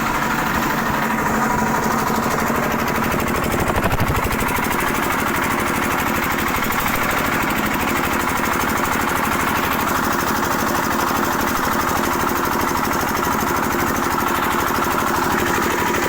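Engine running steadily at idle, with a brief surge about four seconds in.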